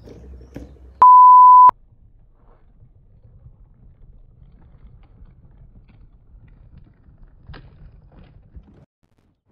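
A loud electronic beep, one steady high-pitched tone lasting under a second, about a second in. After it there is only faint low background rumble with a single click near the end.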